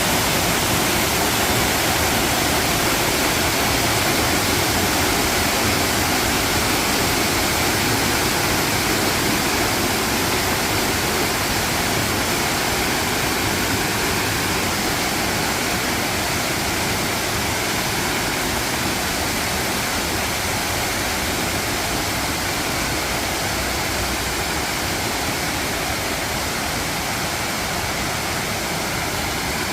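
Dry Falls, a waterfall on the Cullasaja River, pouring steadily: a loud, even rush of falling water that grows slightly softer toward the end.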